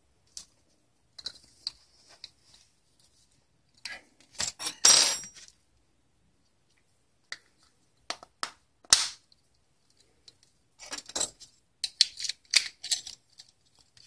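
Small plastic clicks and snaps as a car key fob is handled and put back together, with a brief metallic jingle of keys about five seconds in and a sharp click near the middle.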